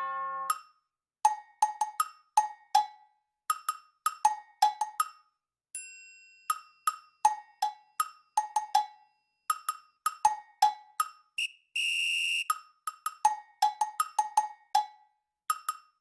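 Background music: a light, rhythmic percussion tune of short wood-block-like knocks at two pitches, with a chime ringing about six seconds in and a brief held high note around twelve seconds.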